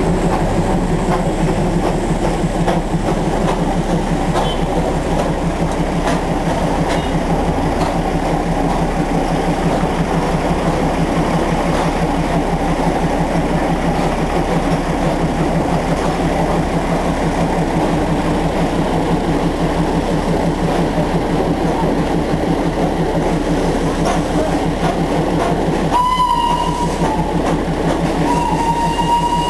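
Darjeeling Himalayan Railway B class 0-4-0 steam locomotive moving under steam, a steady, dense running noise. About 26 s in, a shrill steam whistle sounds briefly, then again near the end, held on one steady note.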